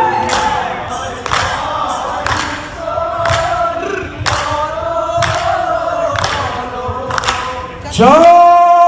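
Live Bihu folk music: dhol drum strokes about once a second under a group of men singing together. A loud held note comes in near the end.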